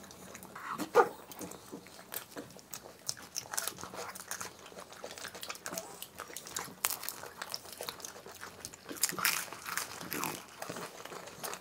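Close mouth sounds of ice cream being eaten: crisp bites and crunching into wafer cones, with wet smacking, scattered irregularly. A couple of brief murmured voice sounds come about a second in and again near the end.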